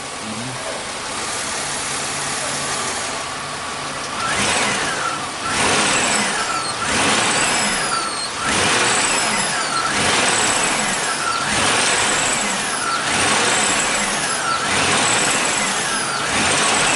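A 2005 Chevy Impala's V6 engine running. From about four seconds in, a falling whine repeats roughly every second and a half.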